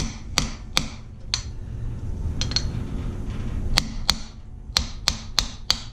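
Hammer striking a socket set on the centre of a small centrifugal clutch held in a vise: about a dozen sharp metallic taps at uneven intervals, each with a brief ringing. The taps are knocking the clutch apart to get at its ball bearings.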